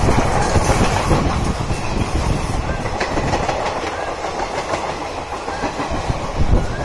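Indian Railways passenger coaches rolling past close by, their wheels clattering over the rails in a continuous clickety-clack over the rumble of the running gear.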